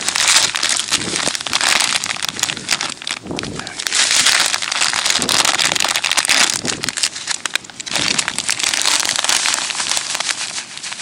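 A plastic packet of dry fishing groundbait crinkling and rustling as it is handled and the dry mix is poured out, in several spells with short pauses.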